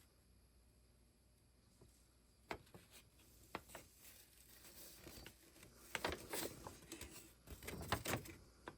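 Quiet handling noise: a few light clicks and taps, then rustling and knocking that grows busier and louder in the second half.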